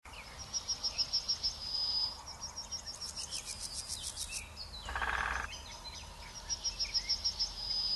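Birdsong: a bird twice sings a quick run of high repeated notes ending in a longer held note, with other calls between, a rapid run of dry clicks about three seconds in, and a faint steady hiss of insects underneath.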